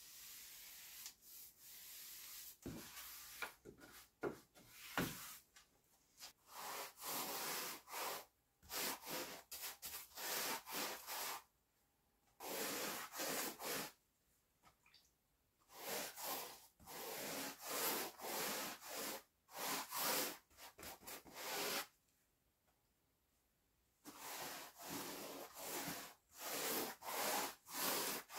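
Quick repeated scraping strokes of a hand tool against wood, in runs of several strokes separated by short pauses, with a couple of sharp knocks a few seconds in.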